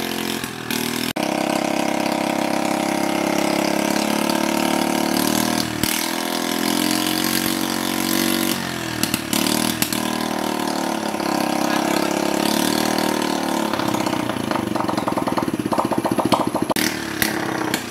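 Small Honda Chaly four-stroke single-cylinder motorbike engine running and held at raised revs, its pitch shifting a few times. About fourteen seconds in it drops to a slower, pulsing idle, and a few sharp clicks come near the end.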